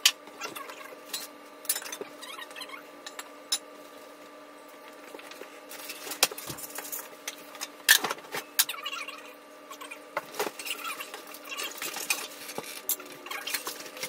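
Cardboard packing being pulled, shifted and scraped inside a log splitter's shipping box: scattered rustles, scrapes and knocks, the sharpest knocks at the very start and about eight seconds in, over a faint steady hum.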